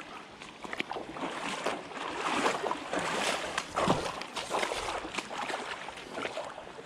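Running creek water rushing steadily, a little louder around the middle, with a few small knocks.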